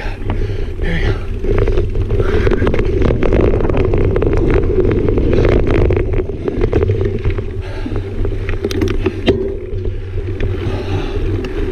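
Mountain bike rolling fast down dirt singletrack: steady tyre and riding noise, with scattered knocks and rattles from the bike over bumps. It is loudest through the middle and eases toward the end.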